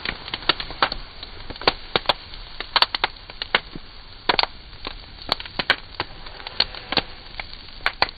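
Irregular sharp clicks and knocks, roughly two a second, from a large Guard security padlock and lockpicking tools being handled.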